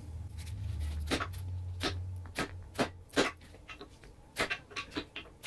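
Seal driver tapped with a hammer, a series of irregular, fairly light knocks, driving a new rear seal into the 4L80E transmission case.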